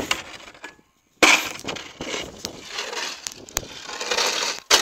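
Heavyweight combat robot driving on a hard floor, making a crunching, grinding racket with sharp clatters. The sound cuts out for a moment just before a second in, then comes back suddenly and loud.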